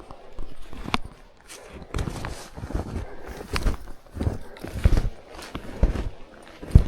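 Snowshoe footsteps crunching in snow, a steady walking pace of about one to two steps a second.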